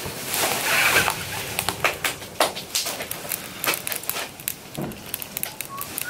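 Wood fire burning in a wood stove, crackling and popping irregularly over a low hiss, with a louder rush of noise in the first second or so.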